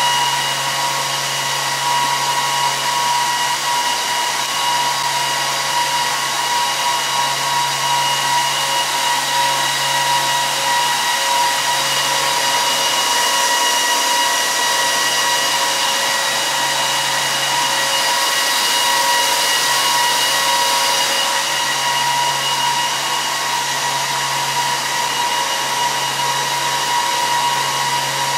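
HP ProLiant ML350 G6 server's cooling fans running loud and steady while it boots through its power-on self-test: an even rushing hiss with a whine of several steady tones over a low hum that swells gently every couple of seconds.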